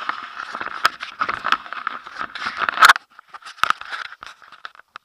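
Close handling noise from an action camera being taken down and moved: scraping and rubbing against its casing with many sharp clicks, loudest just under three seconds in, then a few scattered clicks.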